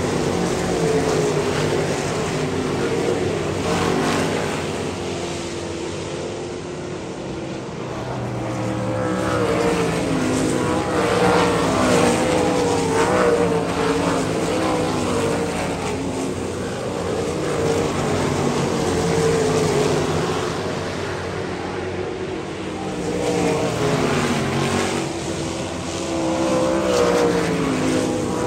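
Several winged sprint cars racing on a dirt oval, their engines revving up and down through the turns. The sound swells and fades repeatedly as the cars come past and move away around the track.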